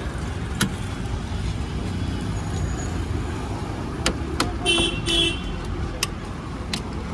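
Steady rumble of road traffic with two short vehicle-horn toots about two-thirds of the way through, and a few sharp clicks of steel utensils against steel pots.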